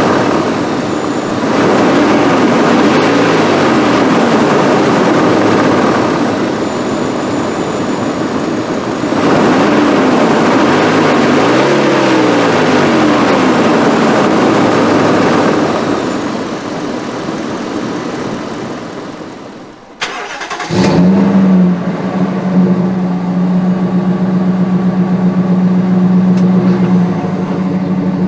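Dodge Ram 1500 pickup's engine revving up and down several times. About twenty seconds in the sound fades out, then the engine starts with a quick flare and settles into a steady idle.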